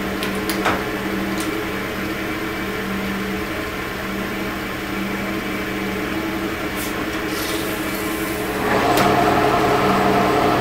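1943 Sidney engine lathe running in its low spindle gear, about 20 RPM, with a steady gear-train hum and a few light clicks. Near the end the running note steps up and gets louder as the lathe goes up a speed.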